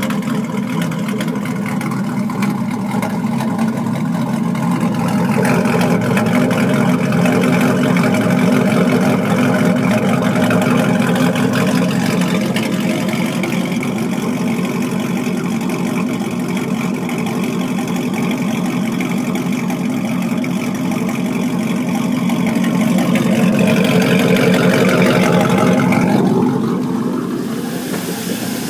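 Chevrolet Silverado's engine idling through a side-exit exhaust with a lopey idle, sounding almost as if it has a cam in it, just after the engine computer has been reset. The sound gets a little louder a few seconds in and drops off near the end.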